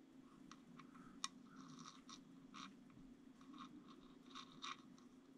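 Near silence: faint scratching and small clicks from a small carburetor jet being turned by hand under a microscope, with one sharper click about a second in, over a low steady hum.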